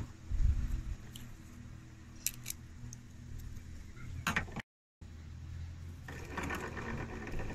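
Handling noise from a spool of monofilament fishing line and a wooden hand reel as line is pulled off and readied for tying: scattered small clicks and rattles, a bump near the start, and rustling near the end. The sound cuts out briefly a little past the middle.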